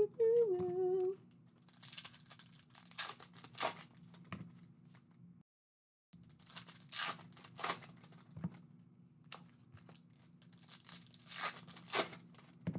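Foil trading-card packs being torn open and their wrappers crinkled, in a run of short rips and rustles. A voice hums a few notes in the first second, and the sound cuts out briefly midway.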